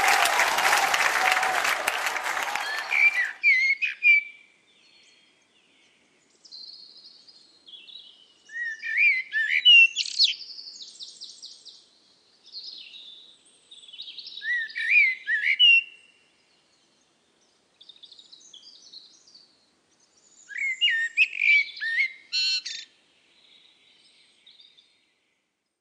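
Applause dies away in the first three seconds. Then a bird sings in short phrases of chirps and quick trills, each a second or two long, separated by brief pauses.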